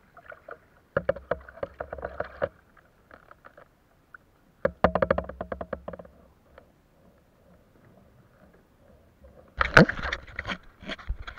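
Kayak paddle strokes splashing water in two bursts, a few seconds apart. Near the end, a hand handles the bow-mounted camera with loud rubbing and knocking.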